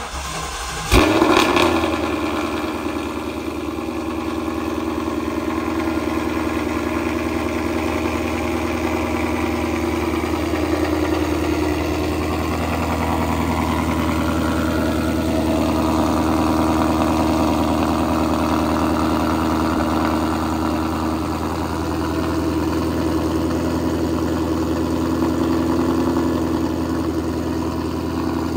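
Ford Mustang GT 5.0 V8 cold start through a Corsa Extreme cat-back with a double X pipe: the starter cranks briefly, the engine catches about a second in with a loud flare, then settles into a steady fast cold idle.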